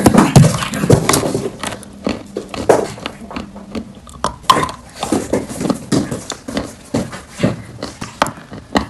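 Chalk crunching close to the microphone: a quick, irregular run of crisp cracks and crunches, loudest in the first second.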